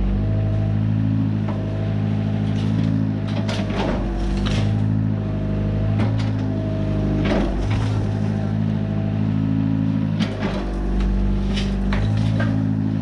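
Komatsu excavator's diesel engine running under shifting hydraulic load, its note swelling and easing every couple of seconds. Sharp cracks and crunches of demolition debris breaking come several times, in clusters about a third of the way in, about halfway and near the end.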